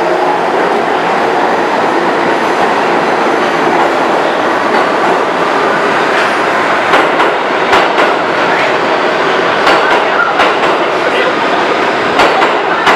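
New York City subway train cars running along the station platform: a steady rumble of steel wheels on rail, with sharp, irregular clacks from the wheels crossing rail joints in the second half.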